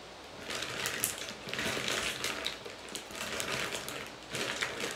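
Small plastic containers and lip gloss tubes being handled and shuffled: irregular clicks and rustles that come in several short bursts.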